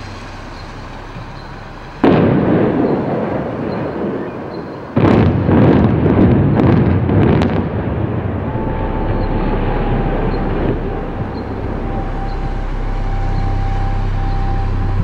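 Explosive demolition of a concrete tower block. A sudden blast goes off about two seconds in, then a second, louder volley of several sharp blasts about five seconds in, followed by several seconds of rumble as the building collapses.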